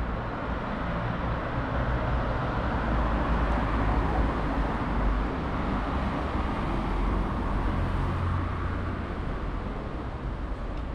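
Street traffic noise with a low rumble, swelling as a vehicle passes midway and then easing off.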